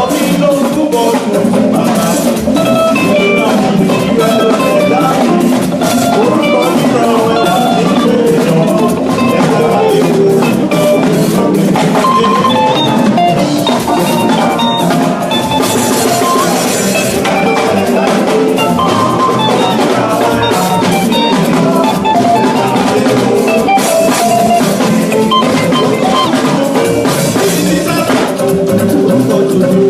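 Instrumental band music, with a drum kit keeping a steady beat under pitched melodic instruments.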